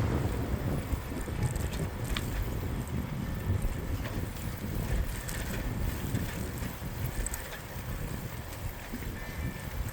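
Wind rumbling on the microphone of a moving bicycle, with steady road noise and a few faint ticks and clicks.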